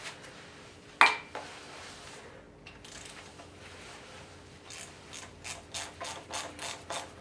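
A sharp knock about a second in, then a hand ratchet wrench clicking in short strokes, about three a second, as a nut is turned on the engine.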